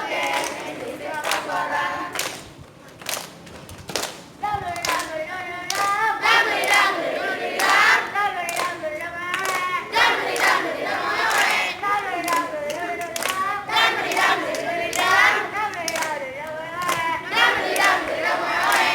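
Children's choir singing, with hand claps running through. The singing drops away around three seconds in and comes back about four and a half seconds in.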